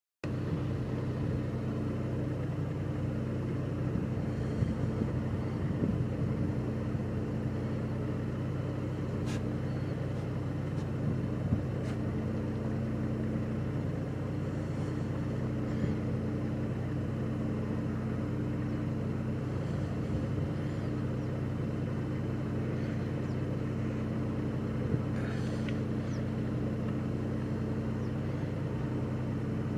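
Car engine idling steadily, a low even hum, with a few faint short high-pitched sounds scattered through it.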